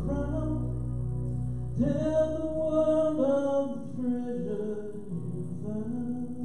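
Worship song: singing over guitar accompaniment in sustained chords, the low bass dropping away about three seconds in.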